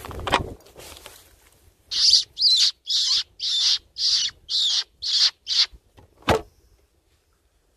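Hand-held fox caller squeaking: eight short, high, wavering squeals about two a second, imitating a distressed rabbit to draw the fox in. There is a brief rustle at the start and a single sharp knock just after the squeals.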